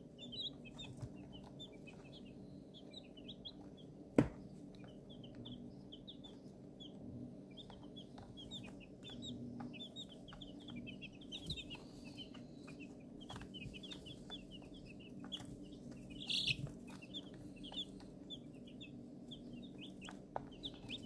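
A brood of baby chicks peeping continuously, many short high chirps overlapping, with a louder flurry of peeps about sixteen seconds in, over a low steady hum. A single sharp click about four seconds in.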